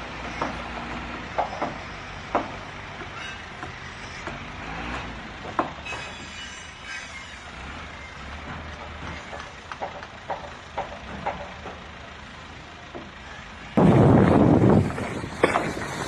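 Heavy machinery running with a steady low engine hum and scattered sharp knocks and clanks. Near the end a much louder, rough rumble starts abruptly.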